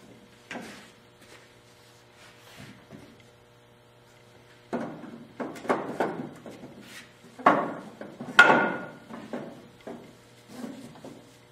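Wooden cross supports knocking and clunking as they are dropped into the tops of wooden folding sawhorses: scattered knocks, the loudest and busiest between about five and nine seconds in. A steady low mains hum runs underneath.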